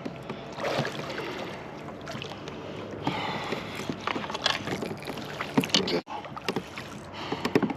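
Water splashing and sloshing around a kayak, with scattered sharp knocks and clicks from the hull and tackle as a big blue catfish is fought beside the boat.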